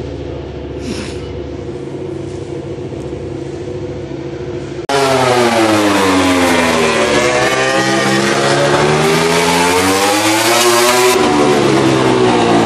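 A MotoGP race bike's engine at a racing test, very loud. Its pitch sweeps down, as when braking and changing down for a corner, then climbs again under acceleration. A quieter steady engine drone comes before it, with a sudden jump in loudness about five seconds in.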